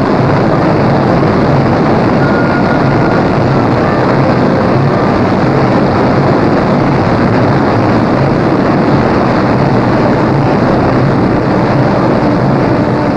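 Boeing 377 Stratocruiser's Pratt & Whitney R-4360 radial piston engines running steadily on the ground after start-up.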